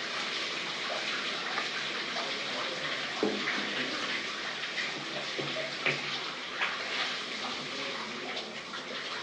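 Water running and splashing in a small tiled shower stall, steady throughout, with a few brief louder splashes about three and six seconds in.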